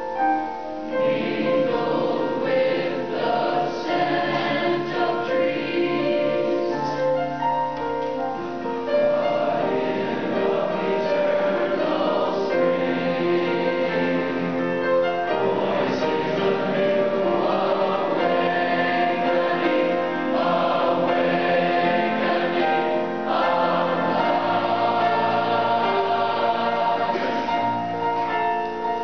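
Large youth choir singing, several voice parts at once on long held notes.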